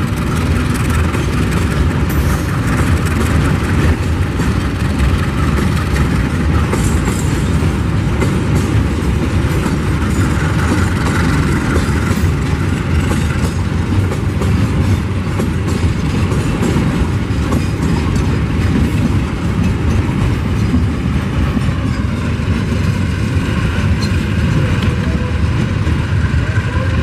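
A long train of ballast hopper wagons rolling past close by: a loud, steady noise of steel wheels running on the rails.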